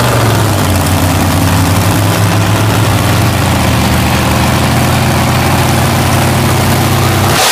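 Engines of two big lifted mud trucks idling steadily with a deep rumble while hitched together, waiting to pull. Right at the end the sound switches suddenly to a loud rushing roar.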